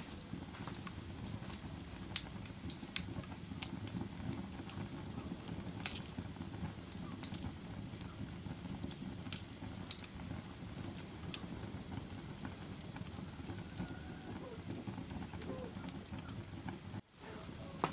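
Fire crackling: a steady low rush of flames with irregular sharp pops and snaps. Near the end the sound cuts out for a moment and fades back in.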